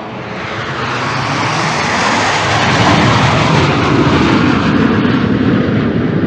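Canadair CT-114 Tutor jet trainer's single turbojet engine: a loud, steady rushing jet noise that grows louder over the first few seconds, then holds and eases slightly near the end.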